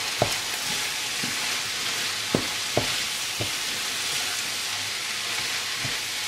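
Bulgur and grated tomato sizzling in a nonstick frying pan while being stirred with a wooden spoon, a steady hiss with the spoon knocking against the pan a few times.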